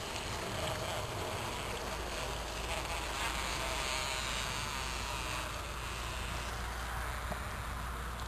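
Honeybees buzzing in a top bar hive opened for inspection, a steady, wavering hum.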